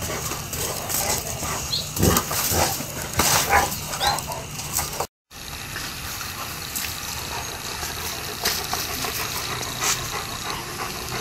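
Dogs playing, with several short barks and yips about two to four seconds in. After a brief break in the sound, a steadier, quieter background with small sharp noises follows.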